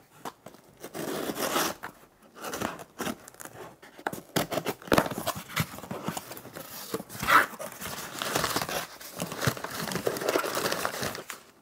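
A cardboard box being opened: scissors slitting the packing tape, then flaps pulled open and crumpled packing paper crinkling and tearing as it is pulled out, in irregular rustles.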